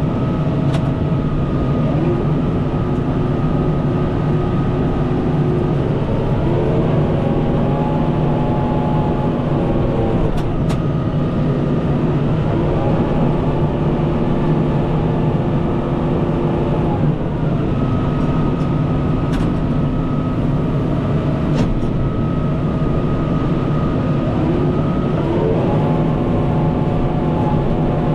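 Kubota M5-091 tractor's four-cylinder turbo diesel running steadily while pushing snow, with whining tones that step up and down in pitch several times as it works back and forth.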